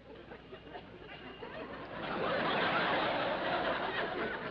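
Studio audience laughing, a crowd laugh that swells about two seconds in and eases off near the end.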